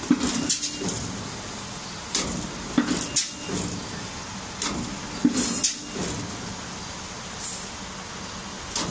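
CNC busbar cutting and punching machine working through its automatic cycle: a cluster of sharp clanks and short hisses about every two and a half seconds as the clamps and tooling act on the copper bar, over a steady machine hum.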